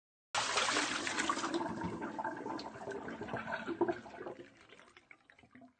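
A sound effect added in editing: a sudden burst of rushing noise begins about a third of a second in and fades away over about five seconds.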